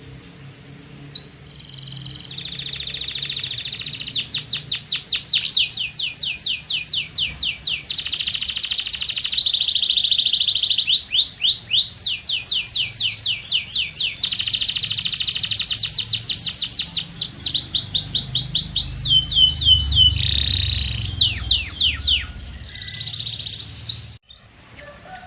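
Domestic canary singing a long, continuous song of trilled phrases, each a quick run of the same repeated note, switching to a new note type every second or two. A faint low hum runs underneath, and the song breaks off abruptly shortly before the end.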